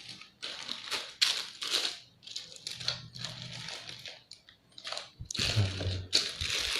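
Plastic packaging crinkling and rustling in short, irregular bursts as small action-camera accessories are handled and unpacked.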